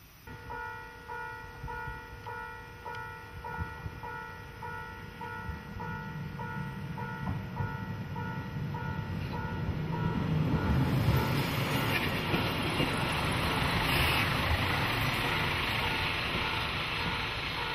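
A level-crossing bell rings in quick, even pulses while a single-car diesel railcar approaches. The railcar's engine and wheels grow louder from about halfway through and are loudest in the last third as it passes close.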